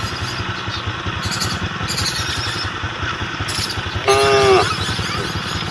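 An engine running steadily throughout, with one short call from livestock about four seconds in that rises and falls in pitch.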